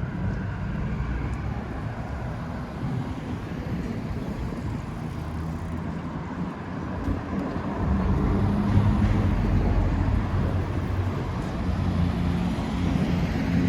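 City street traffic: motor vehicle engines running with road noise. The engine sound grows louder about halfway through, as a vehicle comes close.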